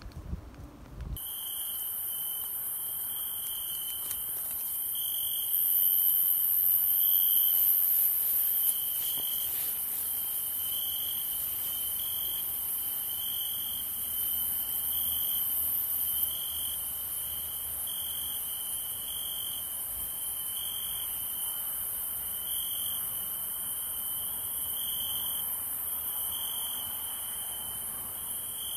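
Crickets chirping at dusk: a pulsed chirp repeating about once every second and a half over a continuous high-pitched insect hiss.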